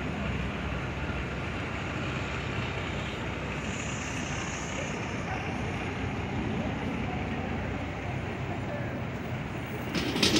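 Steady city traffic noise from a busy multi-lane avenue, with a burst of sharp clattering knocks near the end.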